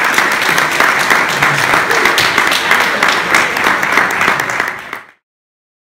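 Audience applauding: dense, steady clapping from a room full of people, which cuts off suddenly about five seconds in.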